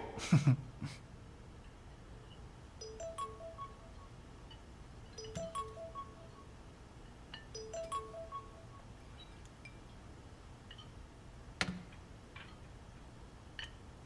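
Soft background music: a gentle chime-like figure of a few short notes, played three times about two and a half seconds apart. A single sharp click comes about three-quarters of the way through.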